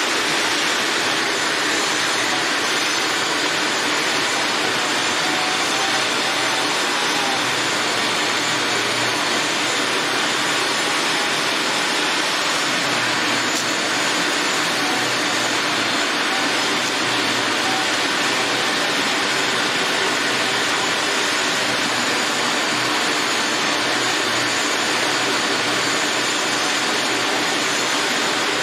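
Steady loud rushing noise that does not change, with a faint low hum beneath it.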